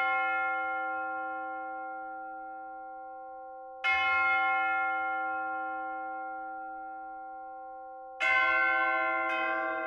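Church bells tolling: slow strokes about four seconds apart, each ringing long and fading away, with a second, lower-pitched bell joining in just before the end.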